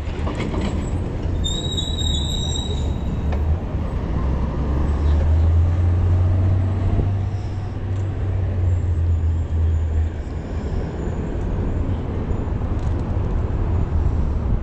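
Downtown street noise heard from a moving bicycle, with a steady low rumble under it and a brief high squeal about two seconds in.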